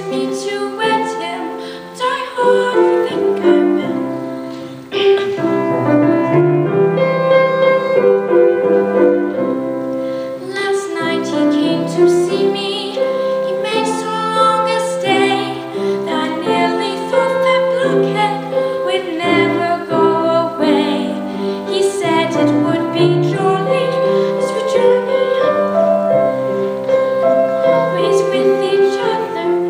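A woman singing solo with piano accompaniment, in long held phrases with a brief break about four seconds in.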